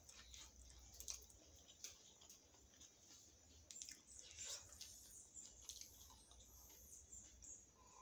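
Faint eating sounds: scattered small mouth clicks and lip smacks, with a soft knock about halfway through as a drinking glass is picked up from the table.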